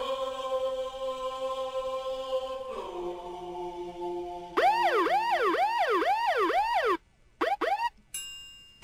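A held, chant-like chord, then a siren wailing up and down about twice a second from about halfway in. The siren cuts off suddenly, gives a couple of brief swoops, and ends on a short fading tone.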